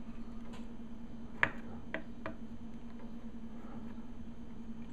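Soldering iron and copper solder wick worked on a circuit-board pad during desoldering: three sharp clicks between about one and a half and two and a half seconds in, the first the loudest, over a steady low hum.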